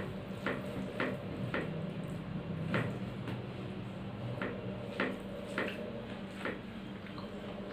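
A hand mixing rice on a plate: soft squishing with scattered light clicks against the plate, over a steady low hum.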